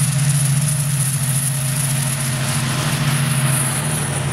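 A large truck's engine running steadily as it drives along the road and past the microphone, a steady low hum with a thin high whine above it.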